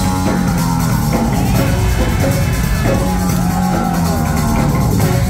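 Rock band playing live in a concert hall, heard from among the audience.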